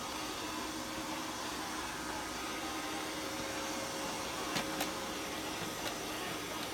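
eufy RoboVac 20 robot vacuum running with a steady whir from its suction fan and brushes. Two light clicks come about four and a half seconds in.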